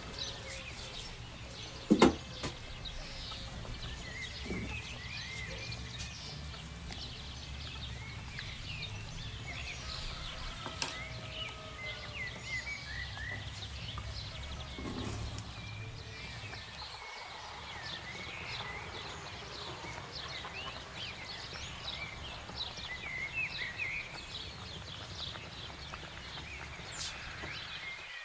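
Small birds chirping and twittering throughout over a steady low hum, with a single sharp knock about two seconds in.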